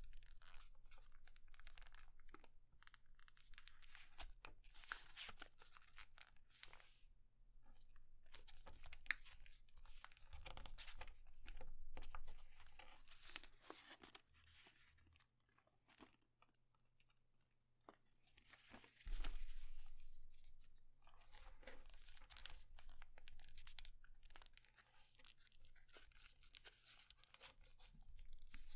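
A sheet of paper being folded and creased by hand into a paper airplane: soft crinkling and crackling as the folds are worked and pressed. It goes almost quiet for a few seconds past the middle, then a louder crinkle follows.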